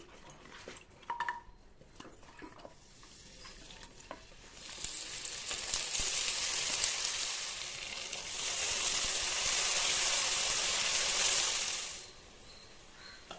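Food frying in hot oil in a pan, a loud sizzle that starts about four seconds in, eases briefly near the middle, swells again and dies down near the end. A few small clinks come before it.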